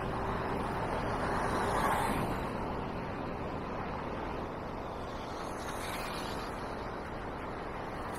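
Street traffic and wind rushing over the microphone of a moving e-scooter rider. Cars pass close by, the loudest about two seconds in.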